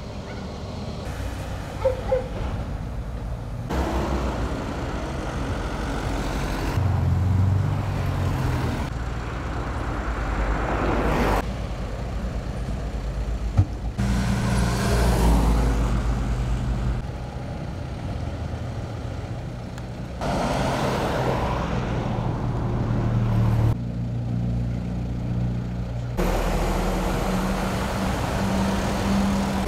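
Roadworks and street traffic: motor vehicle and construction machinery engines running, with a vehicle passing close by around the middle. The sound changes abruptly every few seconds, and a few sharp knocks stand out.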